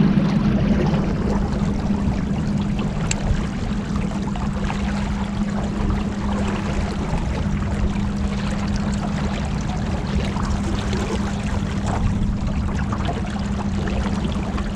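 Boat motor running at a steady speed with a constant hum, over water rushing and splashing along the hull.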